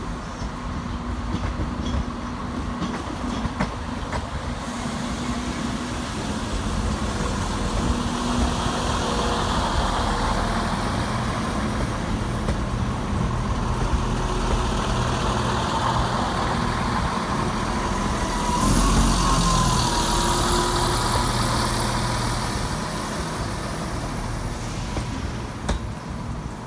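ScotRail Class 170 Turbostar diesel multiple unit running past at close range, its underfloor diesel engines giving a steady hum over the rumble of wheels on the rails. It is loudest about two-thirds of the way through, with a hiss and a short wavering squeal.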